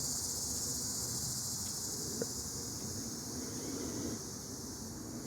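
Steady high-pitched insect chorus, with a faint click a little after two seconds in.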